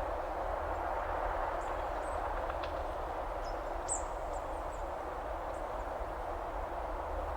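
Waterfall rushing steadily, with a few short, high bird chirps in the middle.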